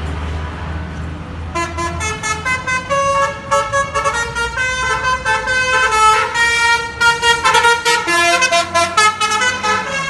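A bus's Basuri telolet horn, a multi-tone musical horn, plays a fast melody of short pitched notes. It starts about a second and a half in and runs almost to the end, over the bus engine's low running.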